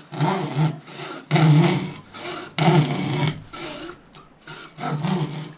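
Hacksaw cutting through a thin Kevlar-and-carbon wing skin with slow, light back-and-forth strokes, about one stroke every second and a bit.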